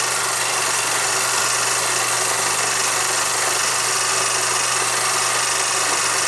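Film projector running: a steady mechanical whir with the constant hiss and low hum of an old film soundtrack.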